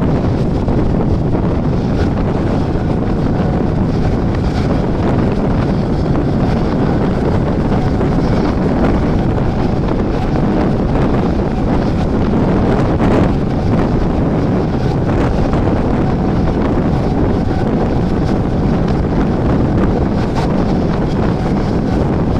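Mumbai suburban electric local train running at steady speed: continuous noise of the train on the track, with wind buffeting the microphone.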